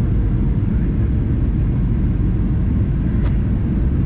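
Steady low rumble of a Boeing 737-800's CFM56 engines and airflow, heard inside the cabin from a window seat beside the wing.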